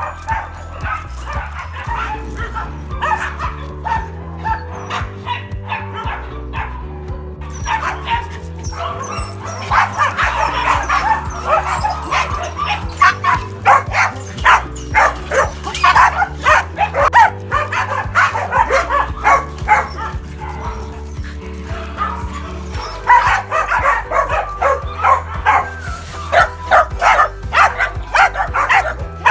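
Several Pembroke Welsh corgis barking repeatedly, the barks coming thicker and louder from about eight seconds in, over background music with a steady bass line.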